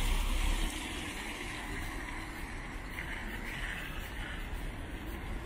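City street traffic noise: a steady hiss with a low rumble, a little louder in the first second.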